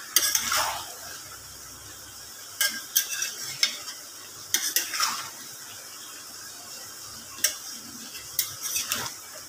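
A spatula scraping and knocking against a metal kadai in irregular strokes as chicken and bell pepper pieces are stirred, with a faint steady sizzle of the food frying underneath.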